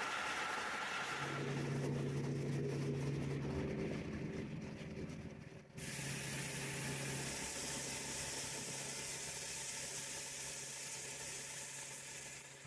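Machinery in a plastic-bottle recycling line running with a steady hum and hiss under a low steady tone. About six seconds in the sound changes suddenly to a brighter hiss over the same hum.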